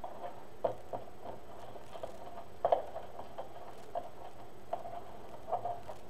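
Gold glitter fabric crinkling and crackling in irregular small clicks as it is scrunched by hand and worked onto a deco-mesh wreath rail, loudest about two and a half seconds in.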